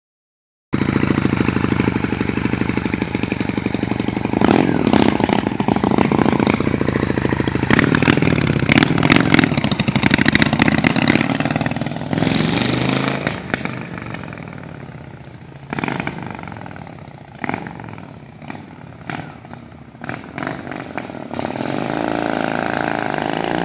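Honda Shadow 600's V-twin engine running close by, revved a few times, then pulling away and fading into the distance. Near the end it comes back, growing louder with its pitch rising as it accelerates.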